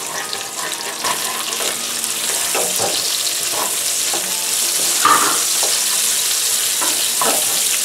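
Shredded ginger and sliced yellow onion sizzling in hot oil in a wok, turned with a spatula that scrapes the pan every second or so. The sizzle gets a little louder about two seconds in.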